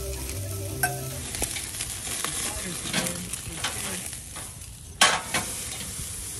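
Mushrooms, onion and sausages sizzling over a gas grill's flames, a steady hiss broken by a few sharp clicks, the loudest about five seconds in.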